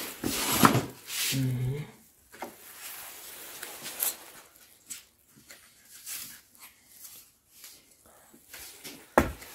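A pet dog whining in the first two seconds, then faint scattered knocks and rustles.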